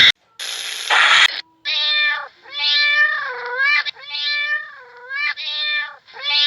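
An animal's repeated drawn-out calls, each clear and pitched, dipping and rising, with one call following another after a short noisy burst at the start.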